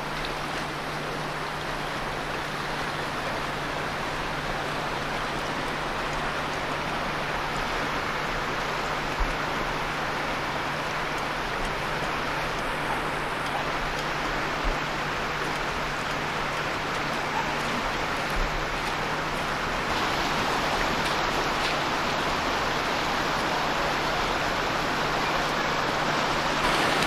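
Floodwater rushing along a street and churning around a utility pole: a steady rushing wash that grows louder in the last third. A few brief low thumps break through it.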